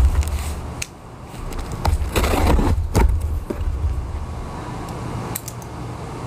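Large cardboard box being opened by hand: packing tape tearing and cardboard flaps scraping and knocking, with a longer rip a little over two seconds in.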